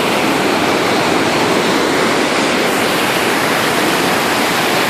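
River rapids: white water rushing over rocks in a steady, loud roar.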